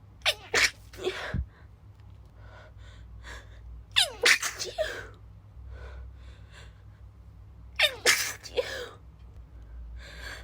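A woman's stifled sneezes, held back into short, sharp bursts, brought on by an itchy nose. They come in three bouts: at the start, about four seconds in and about eight seconds in.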